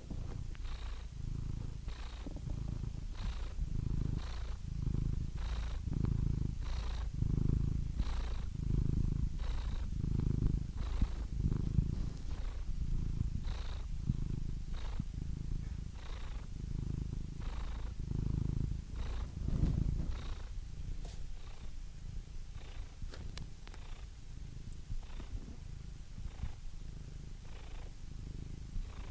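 Domestic cat purring close up: a steady low rumble that swells and eases with each breath, roughly one breath every second and a quarter, with a faint airy hiss on each breath.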